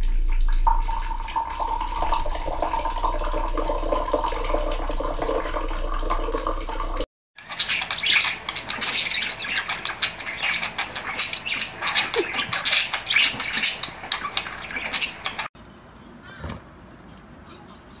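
Water pouring from a bottle in a thin stream, then a group of budgerigars chattering with quick, dense chirps. The chatter drops to a faint level a couple of seconds before the end.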